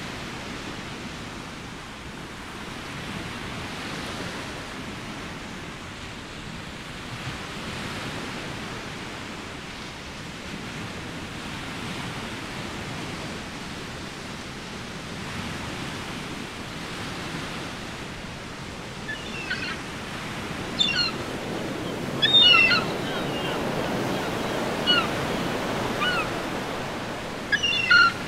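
Small Baltic Sea waves washing onto a sand and pebble shore, a steady wash that swells and fades every few seconds. In the last ten seconds a bird overhead gives short, sharp cries several times; these are the loudest sounds.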